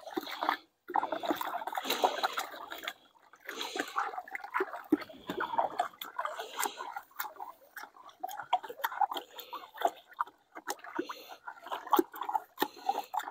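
Sugar and water sloshing in a bucket as 2:1 sugar syrup for beehive feeding is mixed, with irregular splashing and scraping.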